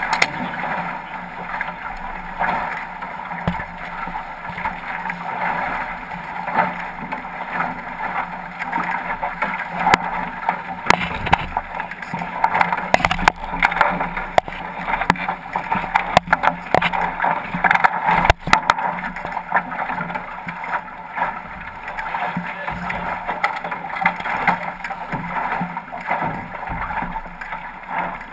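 Water rushing and splashing along the hull of a 505 sailing dinghy under way, a steady wash of noise. Scattered knocks and clatters from the boat's gear and crew, coming thickest in the middle.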